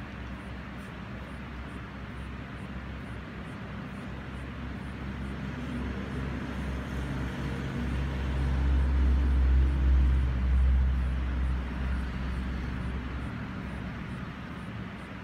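Background traffic noise: a low rumble swells from about six seconds in and fades away about seven seconds later, as a vehicle passes.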